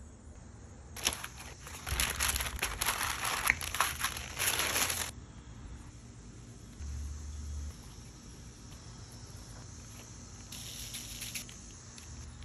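Crinkling, rustling handling noise from hands working food and paper, in two stretches: a long one from about a second in to about five seconds, and a shorter one near the end.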